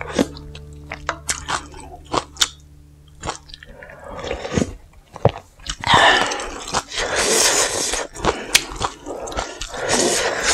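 Close-miked eating sounds: chewing with many sharp crunchy clicks, then longer wet, noisy stretches a little past halfway and near the end as the noodles are worked in the spicy broth.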